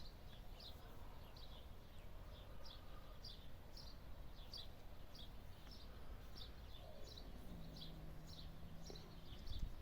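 A bird chirping over and over in the background: short, high, falling notes, roughly two a second. A faint low steady hum comes in for a couple of seconds near the end.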